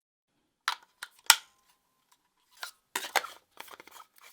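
A string of sharp plastic clicks and small clatter from AA batteries being fitted into a handheld wireless microphone's battery compartment. There is a loud snap about a second in and a quick cluster of clicks about three seconds in, followed by light rattling.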